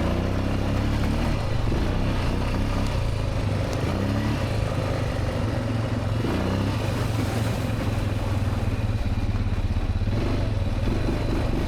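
Honda Rincon 650 ATV's single-cylinder four-stroke engine running steadily while being ridden, its pitch sliding up and down briefly a few times.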